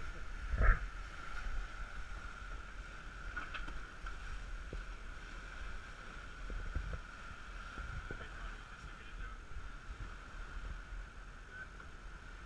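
Sailboat under way at sea: a steady rush of wake water and wind along the stern, with a steady high-pitched hum. A couple of loud knocks come just under a second in.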